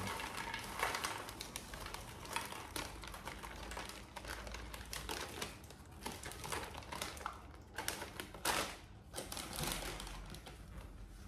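Irregular crinkling and crackling, with many small clicks, from a packet of potato chips being handled and the chips eaten by monkeys. The strongest crackle comes about eight and a half seconds in.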